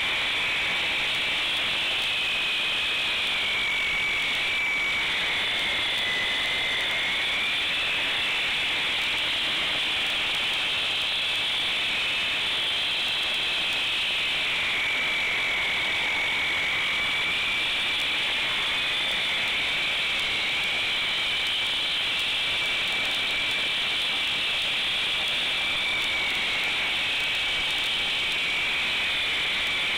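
Hand-held concrete cut-off saw cutting into a concrete slab: a steady high whine that dips and rises a little in pitch as the blade loads in the cut.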